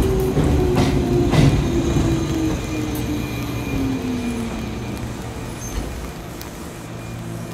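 Hokuriku Railroad 8000 series electric train receding: two wheel clicks over rail joints in the first second and a half, and a whine that falls in pitch and fades over the next few seconds.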